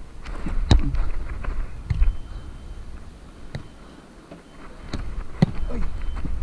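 Sharp slaps of hands striking a Mikasa beach volleyball during a rally, about six contacts, loudest about a second in and again near the end, over a steady low rumble of wind on the head-mounted camera's microphone.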